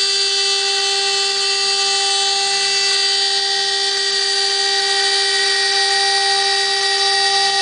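CNC router spindle running at high speed with a steady high whine while routing 4 mm Bond aluminium composite panel.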